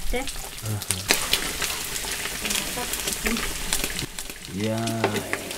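Pieces of sheep-tail fat sizzling as they fry in a large aluminium pan, with a wooden spatula scraping and clicking against the metal as it stirs. This is the fat being fried first to flavour Mongolian milk tea.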